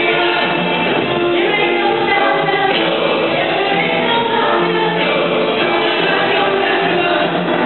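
Church worship song with a woman singing lead into a microphone, backed by a choir and strummed acoustic and electric guitars.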